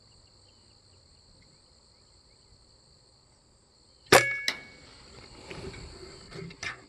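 Single shot from a Kral Puncher Breaker Silent .22 PCP air rifle about four seconds in: one sharp crack with a brief metallic ring, followed by a second, smaller crack about half a second later.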